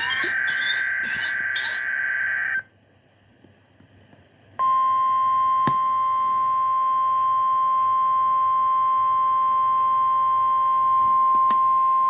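NOAA Weather Radio emergency alert signalling: the harsh, warbling digital SAME header data bursts end about two and a half seconds in, and after a short silence the steady, loud single-pitch 1050 Hz weather radio warning alarm tone starts about four and a half seconds in and holds. This tone announces the alert message that follows.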